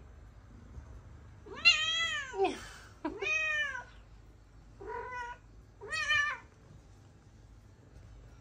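Domestic cat meowing four times: two longer, louder meows, then two shorter ones, each rising and falling in pitch.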